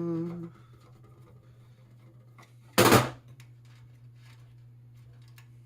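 One loud knock about three seconds in, as a part or tool is set down during hand disassembly of a small electric motor and gearbox, among faint small clicks of the work, over a steady low hum.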